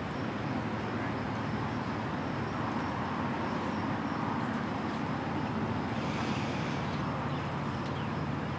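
Steady rushing outdoor background noise of moving river water and wind, with no distinct events apart from a brief higher hiss about six seconds in.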